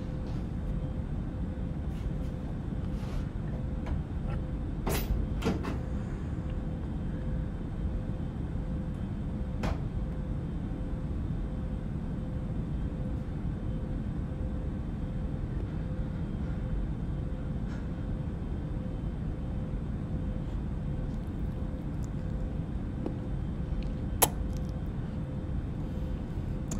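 A steady low rumble with a faint steady hum, broken by a few short sharp knocks or clicks: two close together about five seconds in, one near ten seconds, and the loudest near the end.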